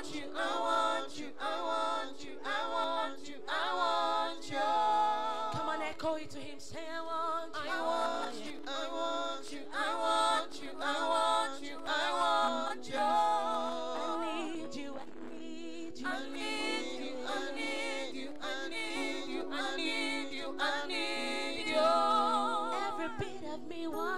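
A woman's voice singing a gospel worship song through a microphone in short phrases, with wavering held notes, over a steady sustained chord.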